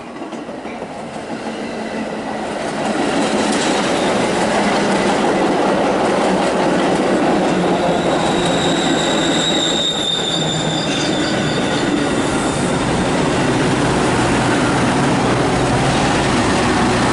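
Train passing close by on the main line: a steady rush of wheels on rail builds over the first few seconds and holds, with a thin high wheel squeal around the middle.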